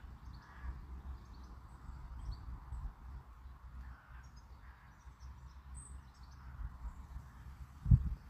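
Quiet outdoor ambience: faint bird calls over a low, uneven rumble, with one dull thump near the end.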